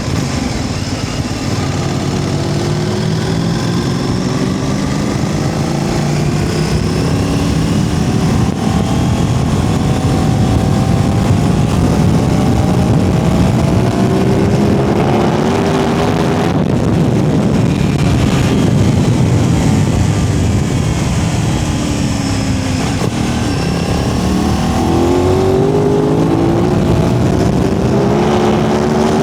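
Aprilia RS660 Extrema parallel-twin engine running under way, heard from the rider's seat. Its note climbs and drops back several times as the bike accelerates through the gears, over a steady rush of wind and road noise.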